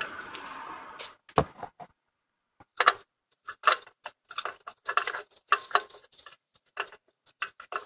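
Irregular light clicks and knocks of parts being handled and fitted by hand among the wiring and brackets of a car's engine bay. A steady rushing noise cuts off about a second in.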